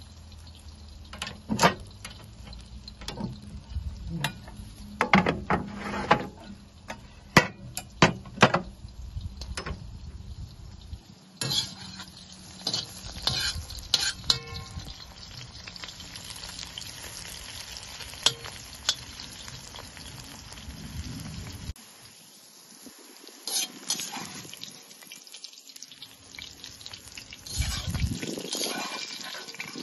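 Sliced red peppers sizzling as they stir-fry in a hot steel wok on a wood-burning cast-iron stove, with a metal slotted spoon clanking and scraping against the wok. Sharp metal knocks come thick in the first ten seconds, then a steady hiss of frying takes over.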